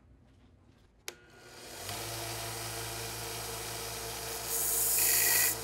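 A benchtop belt sander is switched on with a click about a second in and spins up to a steady motor hum. Near the end, a thin metal rod held in pliers is pressed against the belt, making a loud grinding hiss.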